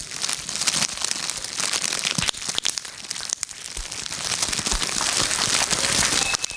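Foley imitation of a crackling fire, made by crumpling magnetic tape and bubble wrap: a dense, uneven crackle of small pops and rustling that thins briefly about halfway, then grows louder.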